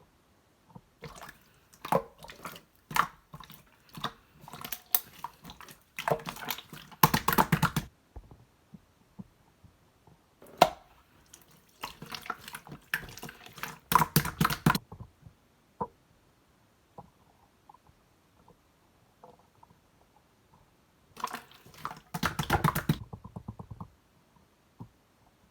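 Clear blue slime being squeezed and worked by hand, giving wet clicking, popping and squelching in three longer flurries with scattered single clicks between. It has the waterlogged sound of slime that has soaked up water.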